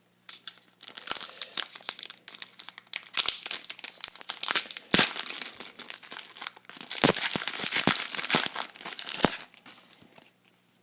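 Foil hockey card pack wrapper crinkling and tearing as it is handled and opened: a dense run of irregular crackles, heaviest in the middle and second half, dying away near the end.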